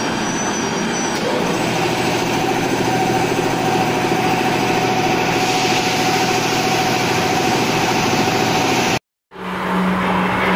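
Large gantry CNC machining centre milling a welded steel machine frame: a steady mechanical whine over dense workshop machine noise. Near the end the sound cuts out for a moment and returns as a lower steady hum of a milling head cutting the frame under coolant.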